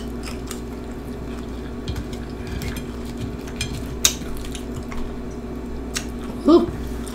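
Tortilla scoop chips crackling and snapping as fingers pull apart cheese-covered nachos on a plate: scattered small clicks with one sharper snap about four seconds in. Near the end comes a short hummed vocal sound.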